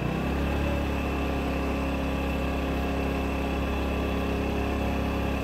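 Moped engine running steadily while the rider waits, a low even hum that steps up at the start and holds level.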